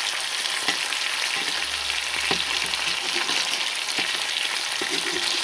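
Pieces of burbot frying in oil in a thick-walled frying pan: a steady sizzle with many small crackles and pops. The heavy pan has built up a lot of heat and keeps the fish sizzling.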